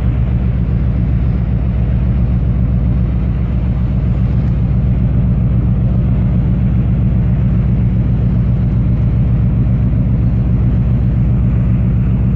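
Steady low drone of a ship's diesel engine, running at an unchanging speed.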